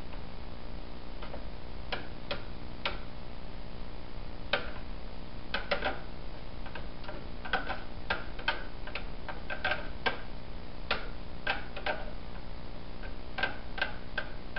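Light, irregular clicks and taps of a zinc-plated steel bolt knocking against its container as it is stirred in black chromate solution, some in quick pairs or triples. A steady low hum runs underneath.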